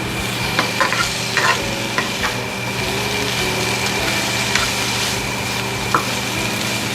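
Chicken and onion sizzling in a frying pan while being stirred, with scattered clicks and scrapes of the utensil against the pan over a steady hum.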